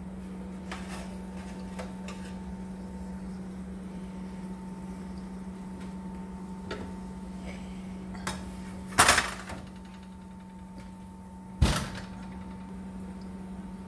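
Kitchen handling noise over a steady appliance hum: a few light knocks, then two loud bangs, the louder about two-thirds of the way through and another near the end, as a hot rack of cooked wings is taken out of the oven and handled.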